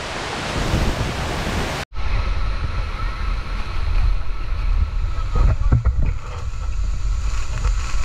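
Steady roar of rushing waterfall water. About two seconds in it cuts abruptly to a lower, deeper rumble, with wind buffeting the microphone.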